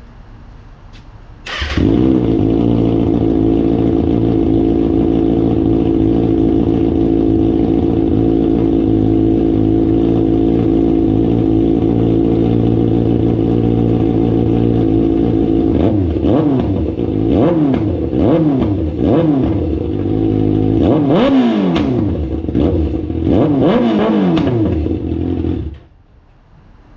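Kawasaki ZX-6R 636 inline-four engine starting up and idling steadily, then revved repeatedly in rising and falling blips before cutting off suddenly, very loud with the stock silencer removed.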